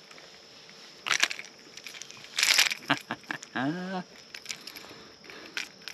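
Handling noise of a topwater lure being worked free from a largemouth bass's mouth: two rustling, scraping bursts about one and two and a half seconds in, scattered sharp clicks, and a short wordless vocal sound from the angler about two-thirds through.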